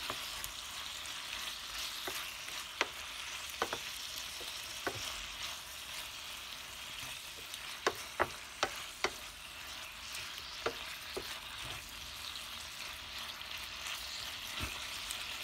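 Chicken breast steak and onions sizzling in a frying pan: a steady hiss, with sharp clicks now and then, several close together about eight seconds in.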